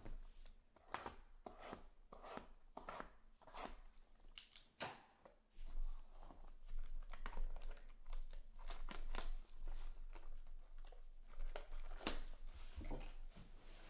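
Plastic shrink wrap crinkling and tearing as it is handled and pulled off sealed trading-card boxes, with the cardboard boxes knocking and sliding against each other in a rapid, irregular string of crackles and taps.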